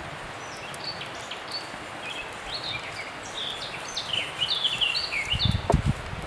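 Small birds chirping in quick, short high notes, getting busier partway through, over a steady outdoor hiss. A few low thumps come near the end.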